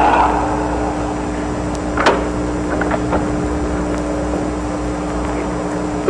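A steady hum on one constant tone, with a single sharp click about two seconds in as a glass-paned wooden door is opened, followed by a few faint ticks.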